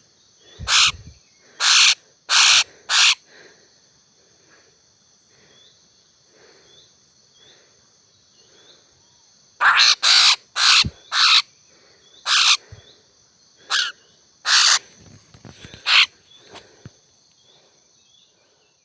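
Laughingthrushes giving loud, harsh calls: a run of about five near the start, then a longer run of about eight from about ten seconds in.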